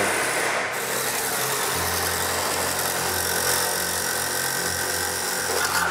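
A machine running steadily, with a low hum coming in about two seconds in.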